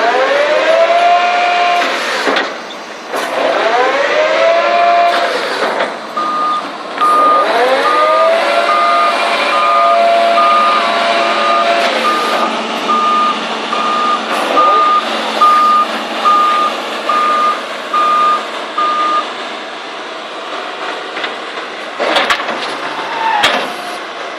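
A 2007 Doosan excavator working: its engine and hydraulics rise in pitch and fall back three times as it is put under load. A steady warning beep sounds about once a second through the middle, the alarm that beeps while the machine travels. A couple of sharp knocks come near the end.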